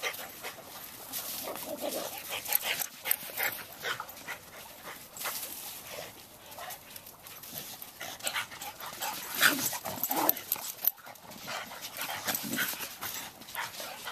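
A boxer and a cattle dog mix playing: dog breathing and play noises mixed with paws scuffling on sand, in many short, irregular sounds.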